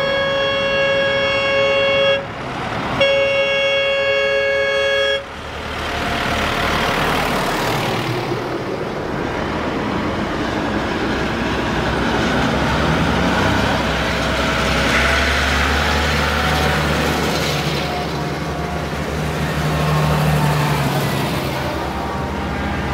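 A vehicle horn blown twice, each blast held about two seconds. It is followed by the steady running of heavy vehicle engines under general outdoor noise.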